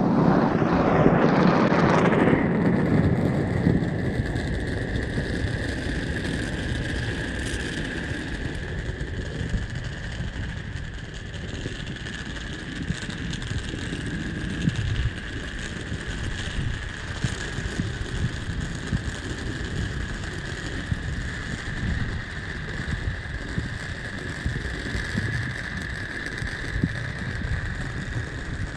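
Countless firecrackers and fireworks going off all around at once, a dense, unbroken crackling and popping, loudest in the first couple of seconds. A steady high tone runs underneath.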